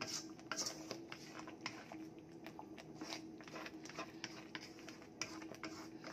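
Wooden spatula stirring thick, sticky sago pearls and sugar in a nonstick wok, with irregular soft clicks and scrapes against the pan. A faint steady hum runs underneath.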